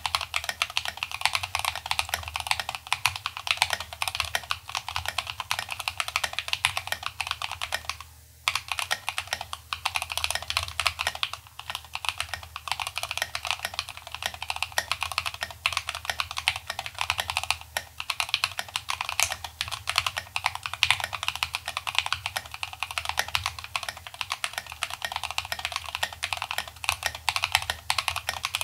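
Rapid, continuous typing on a Feker Machinic 02 mechanical keyboard with linear Gateron Milky Yellow Pro switches and PBT keycaps. The board is modded with PE foam, a tape mod and lubed stabilisers. The typing pauses briefly about eight seconds in.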